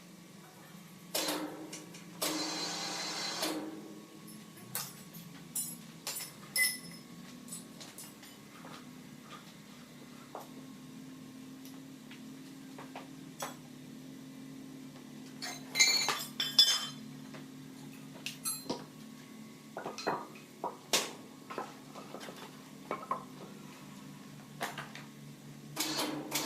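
Scattered sharp clinks and knocks over a steady low hum, with a cluster of louder knocks about two-thirds of the way through.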